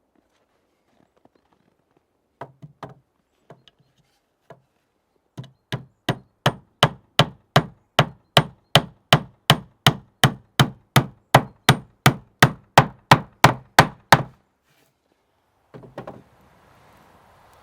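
A hand tool striking wood. A few scattered knocks come first, then a steady run of blows, about three a second, for roughly nine seconds. They stop, and a couple more knocks follow near the end.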